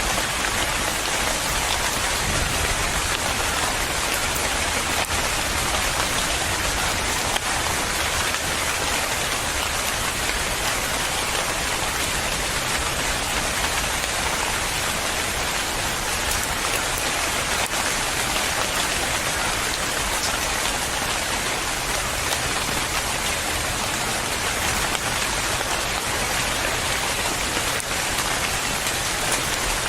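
Steady rain falling and pattering on a surface, an even hiss without thunder.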